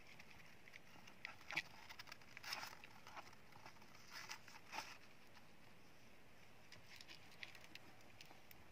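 Hamsters scrabbling about in wood-shaving bedding: faint, scattered rustles and light clicks of paws and claws, coming in small flurries with short gaps between them.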